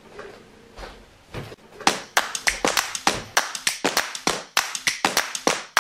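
Steady rhythmic hand claps, about five a second, starting about two seconds in after a quiet start: the clapping opening of an upbeat music track.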